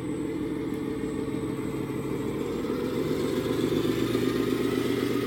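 Small RC Volvo articulated dump truck, loaded with gravel, driving past with a steady engine-like rumble and hum, growing louder as it comes by.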